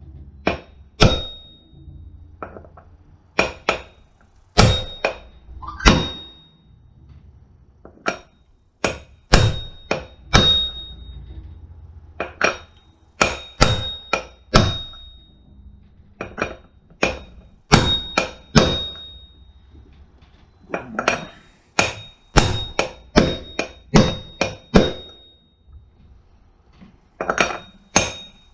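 Hammer blows on a 1.25-inch socket used as a makeshift driver, knocking a new bearing into a Scag mower's front caster wheel hub. The metal-on-metal strikes come irregularly, often in quick pairs or short runs, and many leave a brief high ringing note.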